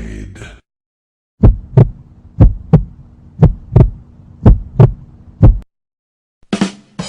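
Heartbeat sound effect: four lub-dub pairs of deep thumps about once a second, then a single last thump, over a steady low hum.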